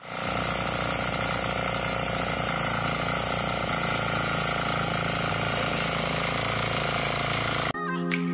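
Small engine of a walk-behind rotary tiller running steadily while tilling soil. Near the end it cuts off abruptly and music begins.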